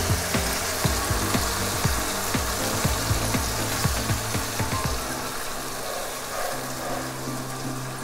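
Mint paste frying and sizzling in oil with browned onions in a kadai, with a spatula knocking and scraping against the pan about two or three times a second until about five seconds in, when the stirring stops.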